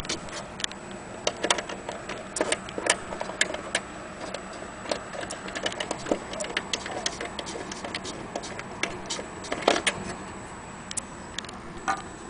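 Antique Vienna wall clock movement ticking, mixed with uneven sharp clicks and knocks from hands handling the case and pendulum. One louder knock comes late on.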